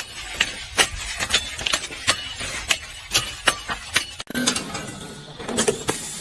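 A run of sharp mechanical clicks and taps, about three a second, breaking off about four seconds in, after which a few more scattered clicks follow.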